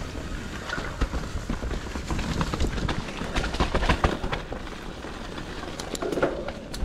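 Mountain bike riding down a rocky, wet dirt trail: tyres rolling over dirt and rock, with frequent knocks and rattles from the bike over a low rumble.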